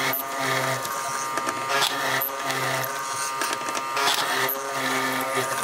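Electric mortising machine running, its cutter plunging repeatedly into a hardwood door-frame piece. The cutting sound rises and falls in a repeating cycle every second or two over the steady hum of the motor.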